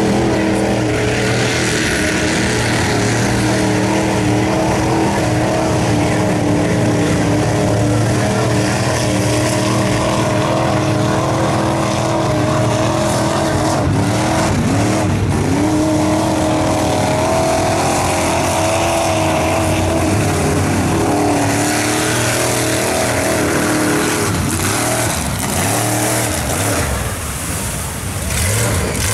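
Mud trucks' engines running loud and revving, the pitch rising and falling around the middle; the loudness dips briefly near the end.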